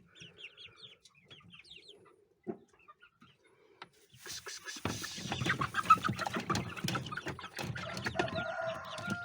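Young Liven chickens peeping and clucking. About four seconds in, a louder stretch of scratchy noise full of clucks begins. Near the end a young cockerel gives a held crow of about a second and a half.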